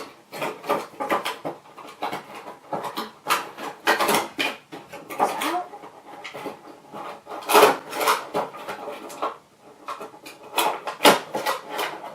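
Packaging being handled as the cube's stand is taken out of the box: irregular rustling, tapping and clicking, louder around four, eight and eleven seconds in.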